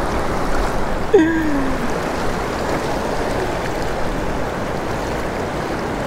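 Fast river current rushing steadily around a wading angler, heard with the microphone just above the water surface. A brief falling voice sound comes about a second in.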